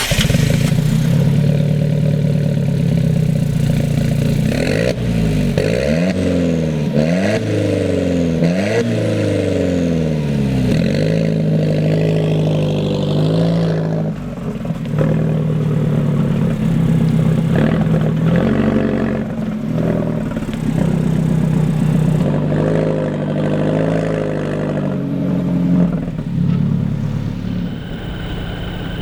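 Alfa Romeo 4C Spider's turbocharged engine and exhaust under hard acceleration: revs climb several times in quick succession with gear changes in between, then the engine runs at a steadier speed for the rest.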